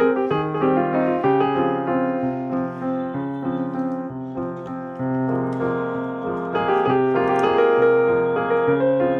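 Background piano music: a quick, continuous run of melody notes over chords.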